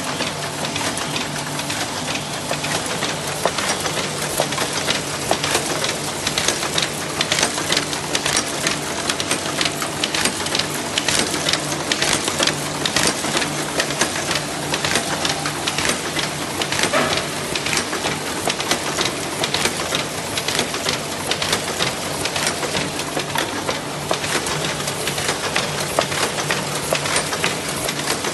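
Brehmer 381/3 book thread-sewing machine running, sewing signatures fed over its saddle: a dense, rapid mechanical clatter over a steady motor hum.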